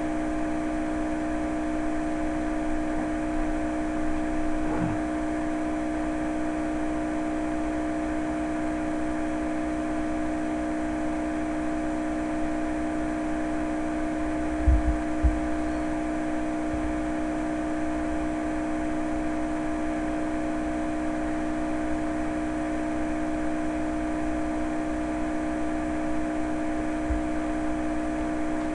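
A steady mechanical hum with a constant low tone and a fainter higher one, with two short low thumps about halfway through.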